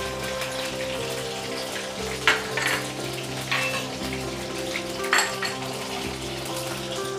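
Batter-coated mushroom pieces deep-frying in hot oil in a kadai, a steady bubbling sizzle broken by sharp crackling pops, two of them loud, a little over two seconds in and about five seconds in. The popping is water from the mushrooms bursting in the oil, and it dies down as they cook through. Steady background music plays underneath.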